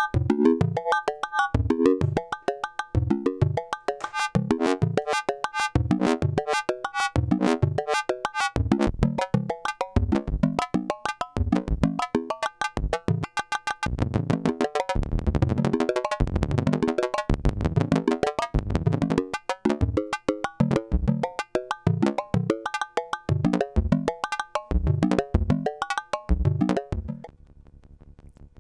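Buchla modular synthesizer playing a pulse-train patch, its function generators triggering the oscillators: a fast, uneven rhythm of short, pitched, drum-like hits in the manner of bongos or tabla. The hits crowd together for a couple of seconds around the middle, then stop shortly before the end, leaving only faint quick ticking.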